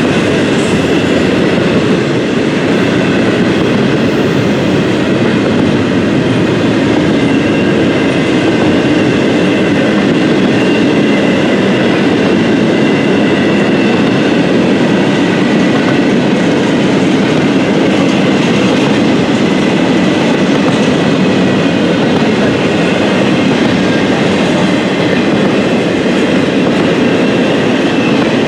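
A train's cars rolling past at a steady pace, wheels clattering on the rails, with a faint high whine over the rumble.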